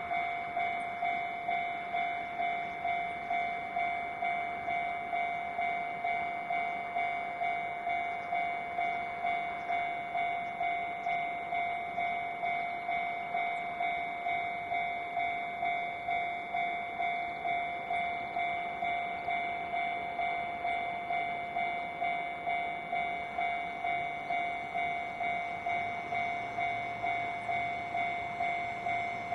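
Japanese railway level-crossing warning bell ringing steadily, about two even electronic strokes a second on one pitch: the crossing is closed for an approaching train.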